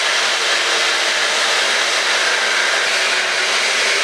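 Hair dryer running steadily on a constant setting, a loud even rush of air with a faint hum underneath.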